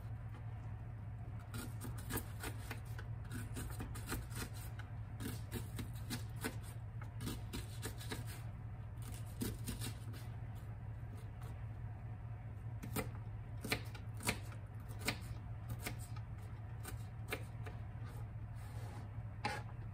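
Small knife dicing an onion on a plastic cutting board: irregular clicks of the blade striking the board, a few louder ones in the second half, over a steady low hum.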